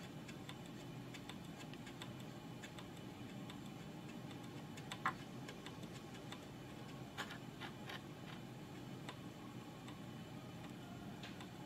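Faint, irregular clicks and ticks over a steady low hum, with a sharper click about five seconds in and another about seven seconds in.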